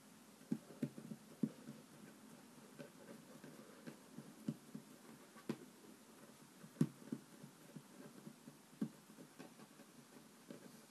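Fingers pressing and patting play dough onto a wooden tabletop: faint, irregular soft thumps and taps, roughly one a second, with one louder tap about two-thirds of the way through.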